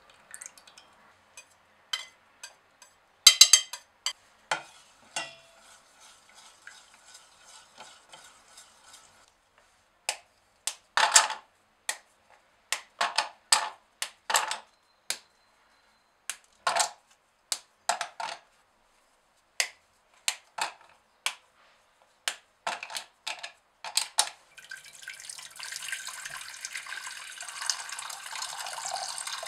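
A run of sharp snaps, clicks and knocks as dark chocolate bars are broken into pieces that drop into a bowl. About 25 seconds in, water starts pouring and splashing into a stainless steel pot.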